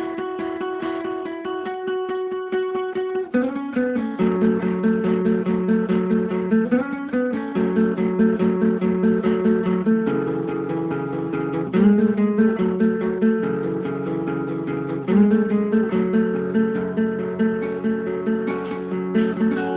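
Acoustic guitar music: chords picked in fast repeated notes, moving to a new chord every few seconds.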